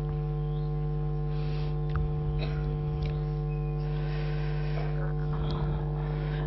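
Steady electrical mains hum, a low buzz with a stack of even overtones, with a few faint clicks about two seconds in.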